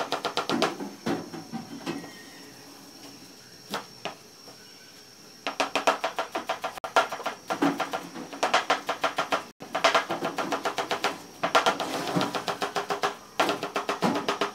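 Chef's knife rapidly chopping parsley on a cutting board: runs of quick, even knocks about ten a second. The chopping stops about a second in, resumes after a pause of some four seconds, then carries on in runs broken by short breaks.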